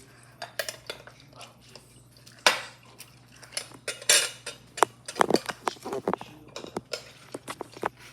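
Irregular clinks and knocks of a lemon juicer and dishes being handled while a lemon is juiced. The strikes are sparse at first and come thick and fast in the second half, with the loudest about two and a half and four seconds in.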